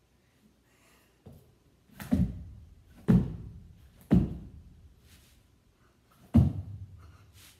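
Clap push-ups on a rug-covered floor: hands slapping down in heavy thuds, three about a second apart, then a fourth after a two-second pause, with a lighter knock before them.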